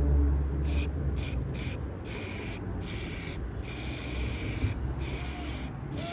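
Aerosol spray can of automotive paint or clear lacquer sprayed in about eight hissing bursts: quick short pulses at first, then longer passes, as the paint is feathered in over a car body repair. A low rumble runs underneath.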